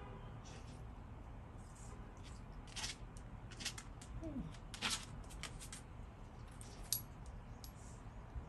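A dog snapping and chewing at a bee, giving irregular sharp clicks and smacks, loudest about five seconds in and again near seven seconds. A short squeak falls in pitch about four seconds in.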